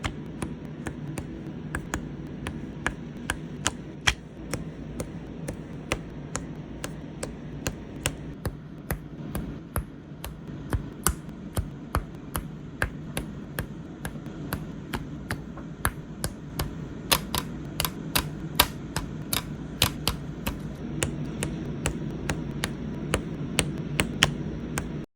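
Plastic press-on nail tips being pressed and stuck in place one after another: a steady run of sharp little clicks and taps, about two to three a second, over a low steady hum.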